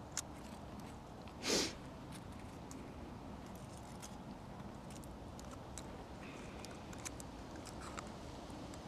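Aluminium foil being folded and crinkled between fingers: faint scattered crackles and ticks, with one short, louder rush of noise about a second and a half in.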